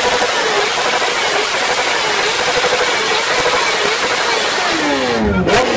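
Motorcycle engine revved and held at high revs through a loud exhaust, its pitch wavering slightly; near the end the revs drop away and then climb again.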